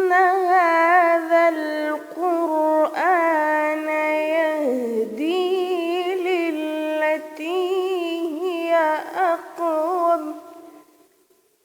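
A female voice reciting the Quran in melodic tajweed style, with long drawn-out notes ornamented with wavering trills and pitch turns. It fades out near the end.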